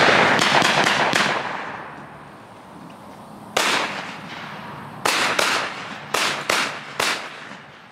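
Shotgun fire at passing doves: a loud shot right at the start that rings out and dies away over about two seconds, followed by a string of further shots, about a dozen in all, several coming in quick succession about a quarter second apart.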